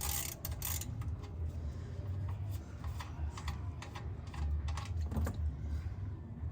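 Socket wrench loosening the oil drain plug on an oil pan: irregular sharp metallic clicks, a quick cluster at the start and scattered ones later, over a low rumble.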